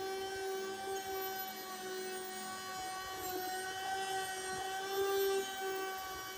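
Handheld rotary tool spinning a small wire brush wheel against a rusted iron lock part, a steady high-speed motor whine with the scratch of the bristles, stripping rust. The whine gets briefly louder about five seconds in.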